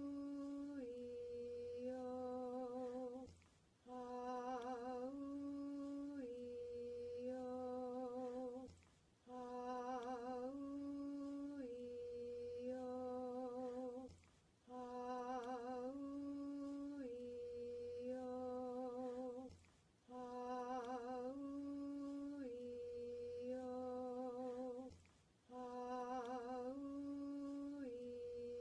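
A single voice slowly chanting the four vowels 'Ah-oo-ee-oh' of a healing chant, each vowel held with vibrato. The pitch rises on the second vowel and falls back, and the whole phrase repeats about every five seconds with a short breath between.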